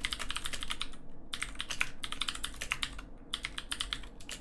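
Fast typing on an old Filco Majestouch 2 mechanical keyboard with Cherry MX Blue switches: a dense run of clicky keystrokes, broken by two brief pauses. After six or seven years of use the blue switches' click has faded out.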